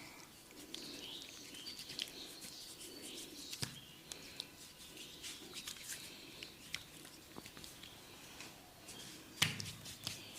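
Hands massaging an oiled head and neck: faint rubbing with many small sticky clicks and crackles, and one louder thump about nine seconds in.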